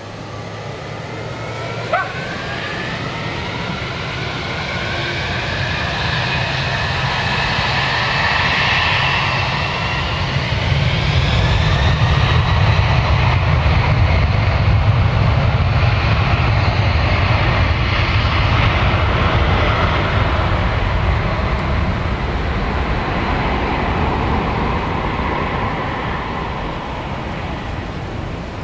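Boeing 747-400's four turbofan engines at takeoff thrust on the takeoff roll: a high whine that rises in pitch over the first dozen seconds, over a deep rumble that swells and then eases. A brief sharp sound about two seconds in.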